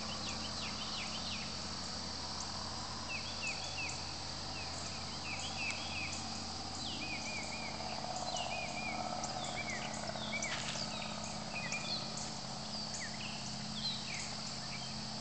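Evening chorus of birds chirping over and over in short falling notes, over a steady high drone of cicadas and other insects. A low steady hum runs beneath.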